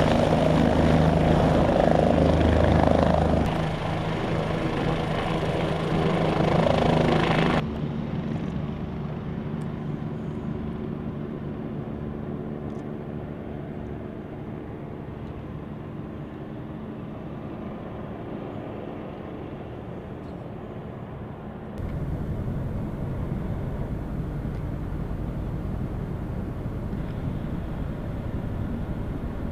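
OH-58 Kiowa Warrior helicopter lifting off close by: the loud whir of its rotor over a single turbine engine. About 7 s in, the sound cuts to a fainter, duller, steady helicopter noise as it flies off, and about 22 s in, it changes to a steady low rumble.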